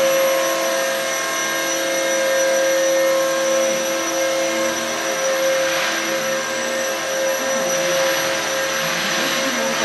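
Radio-controlled scale model helicopter hovering and flying low, its motor and rotor giving a steady whine that holds one pitch.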